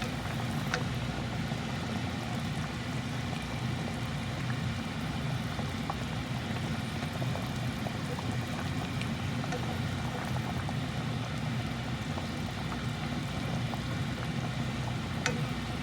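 American shad cooking in a pan, with a steady bubbling, sizzling noise over a low, even hum.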